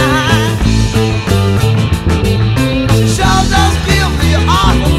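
EB-0 electric bass with a neck Filter'Tron pickup, through a Seymour Duncan Studio Bass Compressor, playing a steady bass line along with a blues-rock recording. Over it a lead electric guitar plays bent notes with a wavering vibrato.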